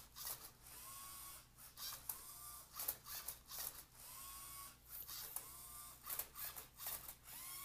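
A Lego Rubik's cube solver robot working through the last moves of its solve. Its small electric motors whir in a series of short whines that rise and then hold, with plastic clicking and clacking as the cube is flipped and its layers are turned.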